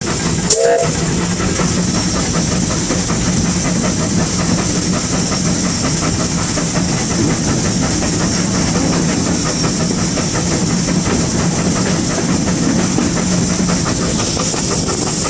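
Footplate of a GWR 5600-class 0-6-2 tank steam locomotive under way: a loud, steady hiss and rumble of steam and machinery, with a low hum and the rapid rhythmic clatter of the running gear and rails.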